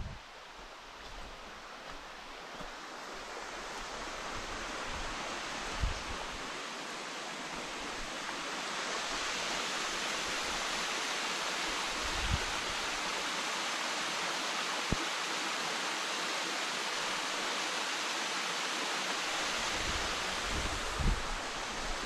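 A small waterfall spilling over a stone weir into a shallow rocky stream: a steady rush of water that grows louder over the first several seconds and then holds. A few soft low thumps are heard.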